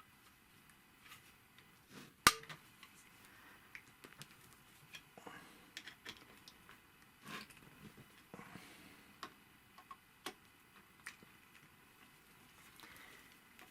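Small metallic clicks and taps from a screwdriver and screws as the back cover of an industrial sewing machine is unscrewed, with one sharper click about two seconds in.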